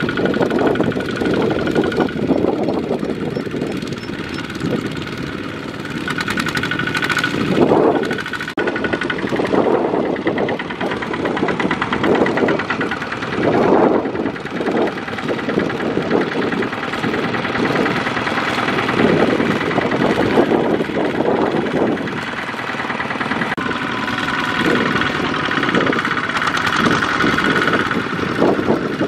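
Two-wheel walking tractors' single-cylinder diesel engines chugging under load as they haul loaded trailers through a muddy rice field, the sound swelling and easing every second or two as they labour.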